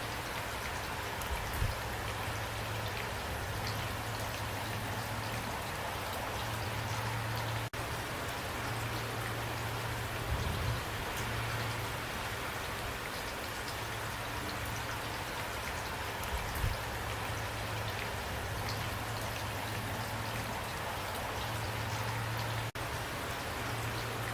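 Steady rain falling, with a few louder drop hits and a low steady rumble underneath. The sound cuts out for an instant twice.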